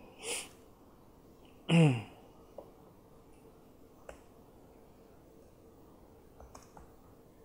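A man's short breathy exhale, then about two seconds in a brief voiced "hmm"-like sound that falls in pitch, the loudest thing here. After it come a few faint, scattered laptop key clicks as code is edited.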